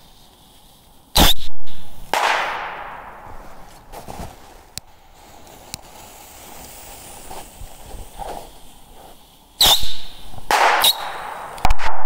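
Small firework rockets going off one after another. There is a sharp loud crack about a second in, then another burst that trails off as a hiss over a second or so. After a quieter spell come three more loud cracks close together near the end.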